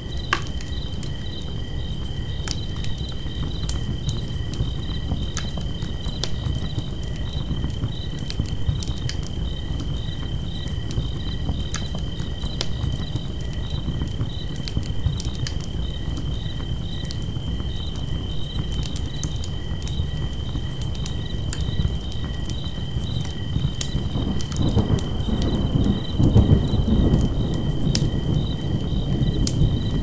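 Crickets trilling steadily with a regular pulsing chirp, over a campfire crackling with scattered sharp pops. A low rushing rumble runs underneath and swells louder about 25 seconds in.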